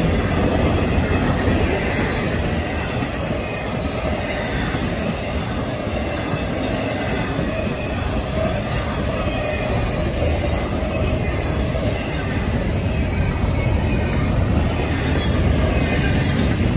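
Intermodal freight train of container cars and double-stack well cars rolling past: a steady noise of steel wheels running on the rails.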